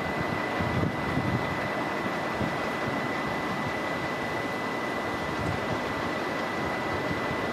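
NSB Type 75 electric multiple unit running slowly into the station, a steady hum with a thin high tone throughout, while wind buffets the microphone.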